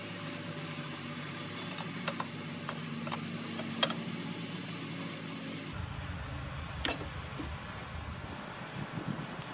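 A few light metallic clicks and taps of an open-end wrench and steel hydraulic hose fittings being threaded and tightened, the sharpest about four seconds in, over a steady low background hum.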